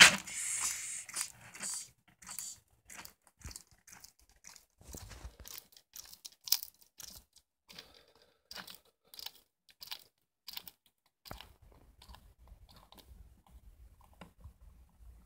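A bearded dragon lunges with a loud scuffle on the plastic tub, then chews a Madagascar hissing cockroach, its jaws cracking the shell in short crisp crunches about twice a second. The crunches thin out near the end.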